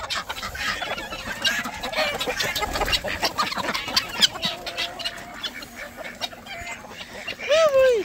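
A flock of chickens clucking and squawking as they crowd together, with many overlapping short calls. Near the end, one bird gives a single loud call that falls in pitch.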